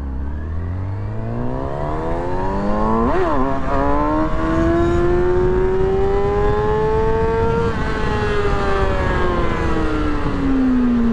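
Small motorcycle engine accelerating hard, with the revs climbing. About three seconds in there is a sharp up-and-down blip of revs as the clutch is used to lift the front wheel for a wheelie. The revs then hold high and rise slowly for several seconds before falling away near the end.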